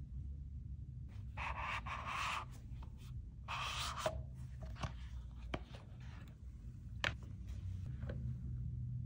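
Paperboard box packaging handled: the inner tray slides out of its sleeve in two scraping rustles, then a few light clicks and taps as the clear plastic phone case inside is lifted out and set down. A low steady hum runs underneath.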